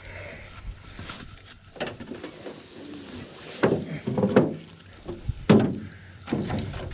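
Wooden-sounding knocks and scrapes of a canoe and its paddle on the water, several louder knocks in the second half.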